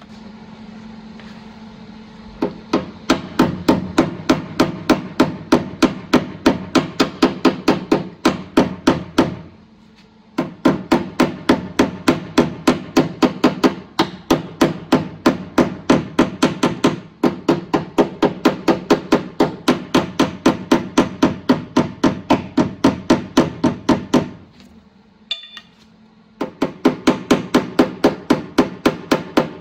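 Hammer blows on car-body sheet metal, struck quickly and evenly at about five a second in long runs broken by two short pauses: panel beating during body repair.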